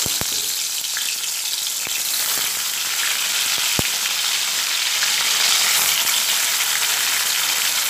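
Whole bhola fish frying in hot mustard oil in a kadai: a steady sizzle, with a few sharp clicks as more fish go into the oil.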